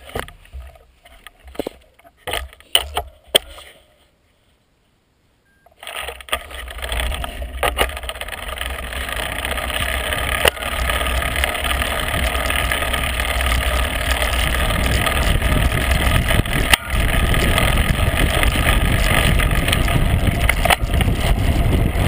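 Wind rushing over a bike-mounted camera's microphone, with road noise from a bicycle coasting fast downhill. It starts about six seconds in after a few scattered knocks and a brief dead gap, then builds as speed rises and stays steady and loud.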